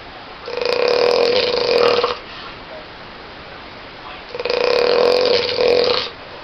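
A person snoring loudly: two long rattling snores, each lasting about a second and a half, about four seconds apart.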